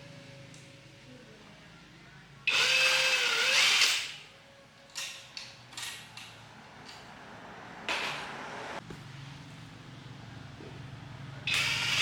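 A power tool's motor runs in two short bursts with a whine that dips in pitch under load, the first about two and a half seconds in and the second near the end. Small clicks and knocks of handled parts come in between.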